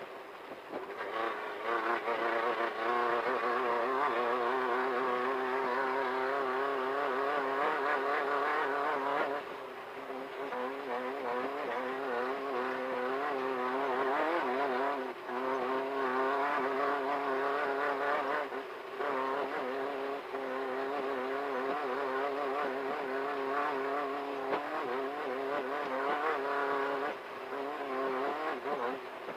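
Class 1500 desert off-road race car's engine running hard at high revs on board, its pitch wavering as the throttle works. The revs drop briefly several times, about a third of the way in, halfway, near two-thirds and near the end, as the driver shifts or lifts off.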